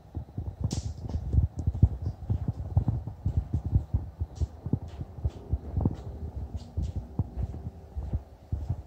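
Irregular low thumps and knocks with a few faint clicks: handling noise from a handheld phone being carried while someone walks across a wooden floor.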